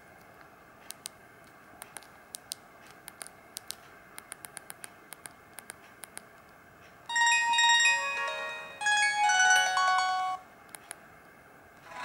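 Sony Ericsson J110i mobile phone: a run of irregular keypad clicks as the menus are scrolled. About seven seconds in, two short ringtone previews play through the phone's small speaker, one after the other, each a bright electronic melody that cuts off suddenly as the next ringtone in the list is highlighted.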